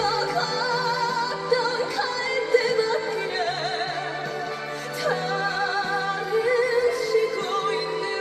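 A woman singing a slow Korean trot ballad in long held notes with wide vibrato, over a steady instrumental accompaniment.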